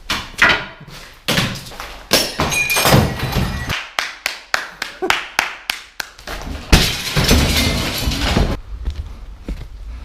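A rapid series of knocks and thuds, then a longer crash lasting about two seconds, roughly two-thirds of the way through.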